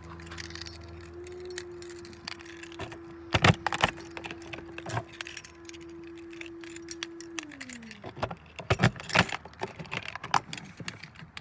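A ring of keys jangling and clinking as it is handled and a key is put into a small door lock, with the loudest jangles about three and a half seconds in and again about nine seconds in. Under it, a steady hum falls in pitch and stops about seven to eight seconds in.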